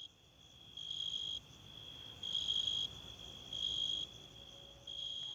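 Cricket chirping: a high, steady trill with four louder chirps of about half a second each, coming roughly every second and a half.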